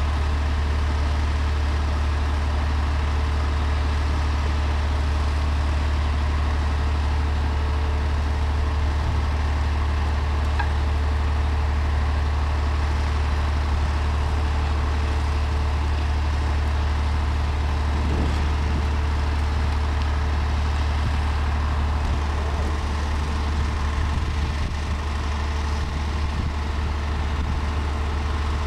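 Heavy vehicle engine idling steadily, a continuous low drone.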